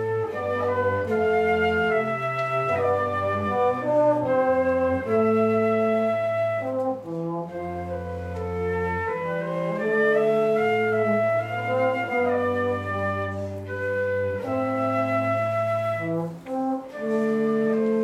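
Live chamber trio of flute, trombone and cello playing a slow piece in sustained notes about a second or two long, the cello and trombone carrying the low line under the flute. There is a brief break between phrases about three-quarters of the way through.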